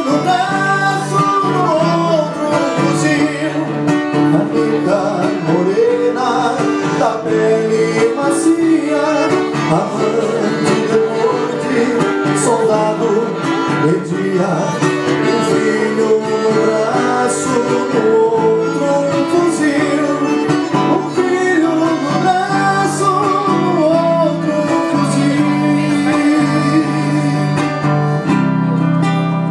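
Music led by guitar, with a flowing melody line over it.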